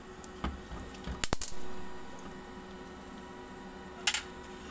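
Sharp metallic clinks from handling parts of a common rail high-pressure pump during disassembly: a click about half a second in, a quick rattle of clinks just after a second, and one more clink near the end.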